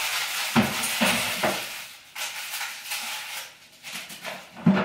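Hot food sizzling with a few clinks and knocks of dishes, stopping about two seconds in. Then light kitchen clatter at a trash bin, ending in a sharp knock near the end.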